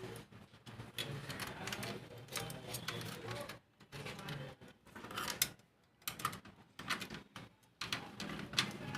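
Irregular clicks and small knocks of plastic printer parts and a screwdriver as the gear assembly of an HP LaserJet 1020 is fitted back and its screws tightened.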